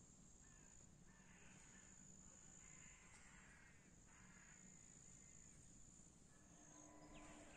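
Faint, distant crows cawing: about four hoarse caws in the first four and a half seconds. A steady high-pitched insect trill, likely crickets, runs underneath.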